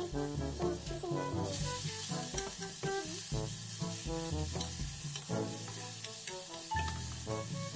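Chopped garlic sizzling in a little hot oil in a nonstick pot while a spatula stirs it, the sizzle growing louder about a second and a half in. Background music with a bass line plays throughout.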